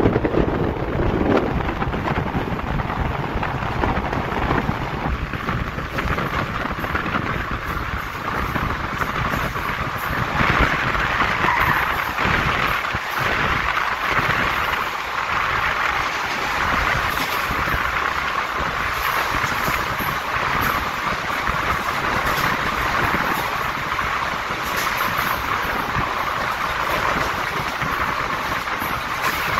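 A passenger train running through a railway tunnel, heard from an open coach doorway: a steady, loud rumble of wheels on rails and rushing air, closed in by the tunnel walls. The higher, hissing part of the rush grows stronger about ten seconds in.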